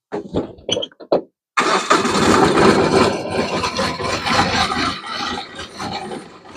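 A few light clicks, then a farm tractor's engine starts abruptly about a second and a half in and runs loud and steady. It is starting after sitting unused for a couple of weeks.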